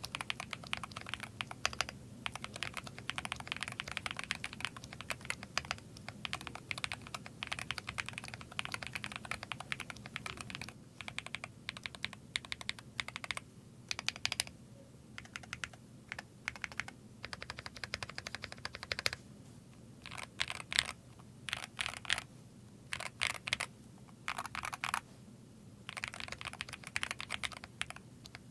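Typing on a Pwnage Zenblade 65 v2 mechanical keyboard: fast runs of key clacks broken by brief pauses, turning to slower, separate keystrokes in the last third.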